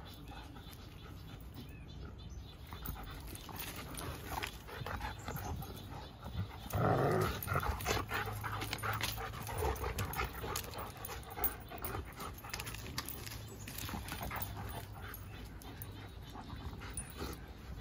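A German Shepherd and a Bernese Mountain Dog at rough play, scuffling and scrabbling on loose dirt. There are dog sounds throughout, with a loud burst about seven seconds in.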